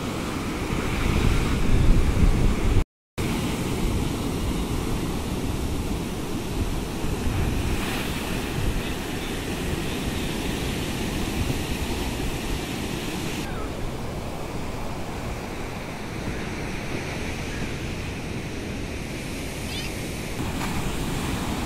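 Ocean surf breaking and washing up a sandy beach in a steady wash of noise, with wind buffeting the microphone, strongest in the first few seconds. The sound cuts out for a moment about three seconds in.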